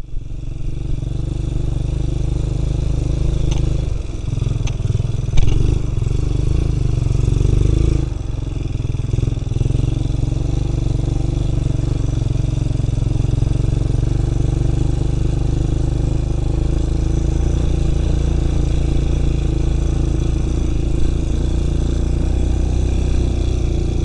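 ATV engine running as it rides along a wet, rocky dirt trail, with the engine note shifting about four to eight seconds in and a sharp knock about five seconds in; otherwise steady.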